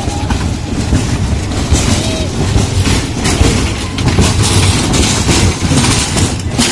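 Frog-car spinning ride running, heard from aboard. Its cars roll and rattle around the circular track with a loud, unsteady rumbling noise.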